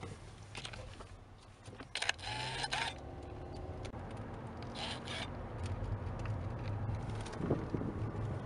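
Steady low rumble of a car driving, heard from inside the cabin, with short rustling scrapes of a handheld camera being moved about two and five seconds in.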